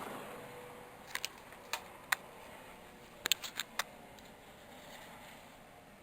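A passing helicopter's rushing noise fading away, then a scattering of small, sharp clicks, several in quick succession a little past the middle.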